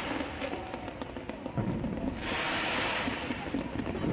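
Fireworks popping and crackling, with a dense hissing crackle about two seconds in, over a background of crowd voices.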